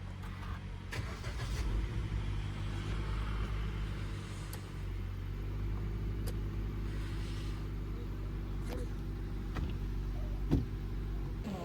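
Car engine idling steadily, warming up after a cold start, with a few faint clicks over it.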